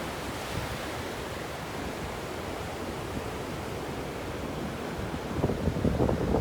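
Ocean surf washing steadily on a beach. Near the end it turns louder and choppier, with a low rumbling.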